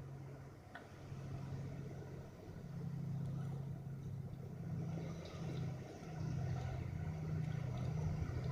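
Electric drive motor and gearing of an Axial SCX10 Honcho scale RC crawler truck running with a low, steady hum. It cuts in and out several times.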